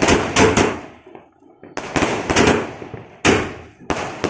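A 120-shot sky shot fireworks cake firing: shells bursting overhead in a rapid, irregular string of sharp bangs, each dying away over about half a second. A brief lull comes about a second in.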